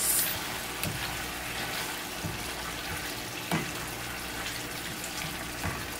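Chicken pieces, hearts and livers with julienned ginger sizzling in a frying pan, stirred with a spatula that knocks and scrapes against the pan a few times.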